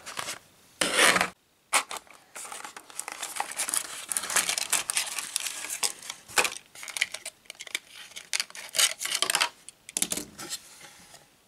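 Plastic packaging rustling and crinkling in the hands as a small diecast toy car is unwrapped, in irregular bursts with short clicks, the loudest burst about a second in.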